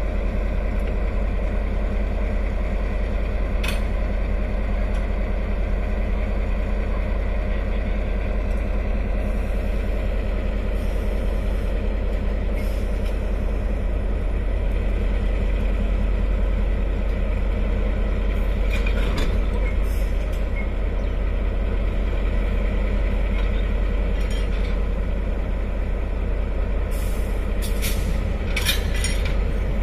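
Diesel-electric locomotive R155 idling steadily, with a few short hisses of air about four seconds in, around the middle, and near the end.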